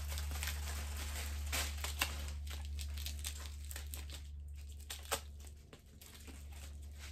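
Paper envelope crinkling as it is handled and slit open with a small knife, with a few sharp clicks; the rustling dies down after about five and a half seconds.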